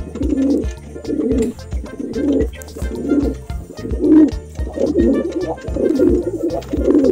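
Domestic pigeon cooing, a run of low repeated coos about once a second.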